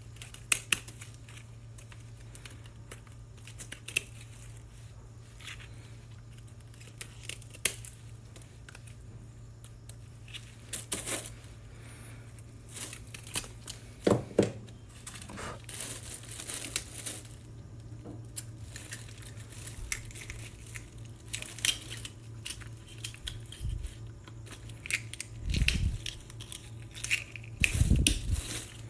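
Small oyster shells being shucked by hand: scattered clicks, scrapes and cracks as a knife works at the shells, mixed with the crinkle of a plastic bin liner. A steady low hum runs underneath.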